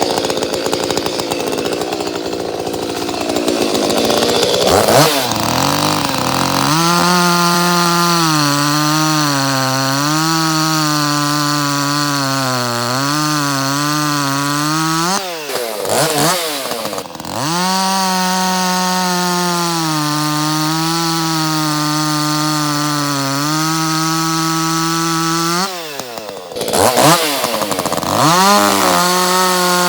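Ported Echo CS-310 two-stroke chainsaw running at high revs and cutting through wood. Its engine pitch holds fairly steady under load, wavering slightly. It dips sharply and climbs back twice, about halfway through and again near the end.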